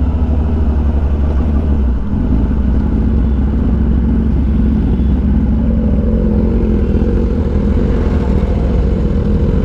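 Kawasaki Ninja ZX-10R's inline-four engine running at low revs as the bike slows and pulls up, a steady rumble with no revving.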